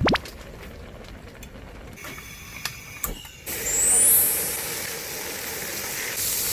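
A quick rising whoosh at the very start. About halfway in, a loud hiss starts suddenly and runs on steadily: meat sizzling in a hot pan.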